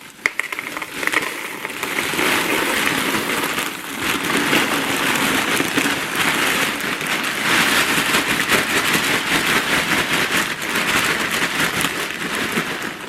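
Frosted Flakes cereal being poured from its bag into a cereal container: a continuous dense rustle of many small flakes falling and striking, with some unevenness as the pour goes on.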